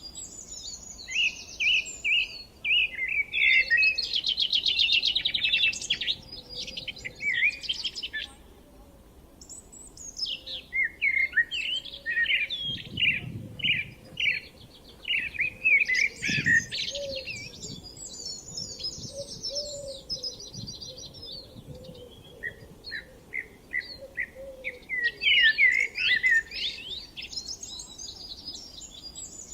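Songbirds singing in the open countryside in spring: several overlapping songs of quick chirps and rapid trills, coming in bursts with short pauses between phrases.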